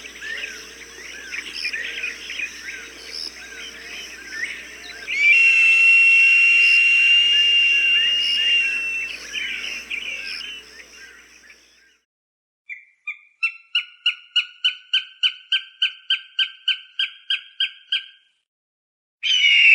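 Recorded hawk calls over a chorus of chirping birds. First comes a dense chirping with long, steady high whistled notes. After a brief pause there is a rapid run of about twenty sharp call notes at roughly four a second, and a loud harsh scream starts at the very end.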